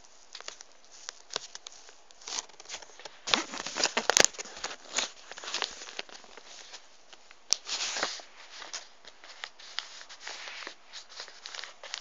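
Sheet of paper being handled, folded and creased by hand, rustling and crinkling with small clicks. It is louder for about a second a few seconds in and again briefly about two-thirds of the way through.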